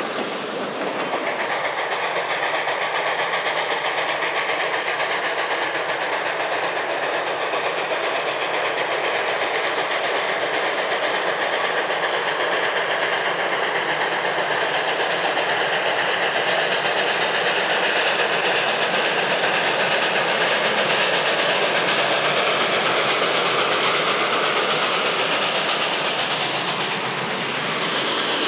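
Freight train rolling past behind a steam locomotive: a steady clatter of steel wheels on the rails. The top end of the sound drops away about a second and a half in.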